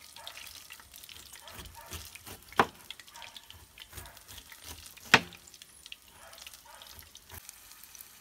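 Large kitchen knife cutting the peel off a pineapple, with soft crunching and crackling, and two sharp knocks about two and a half seconds apart as the blade strikes the plastic cutting board.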